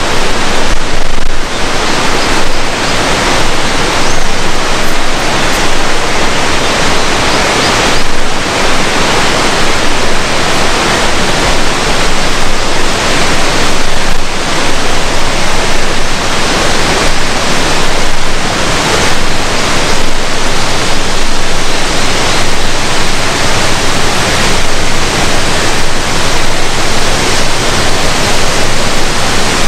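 Loud, steady rush of falling water.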